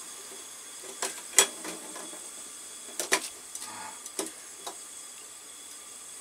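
Gas burner of a small portable grill hissing steadily while its gas valve is adjusted for a clean blue flame. A few sharp clicks and taps come from the valve and fitting being turned: about a second in, twice around three seconds, and again near four seconds.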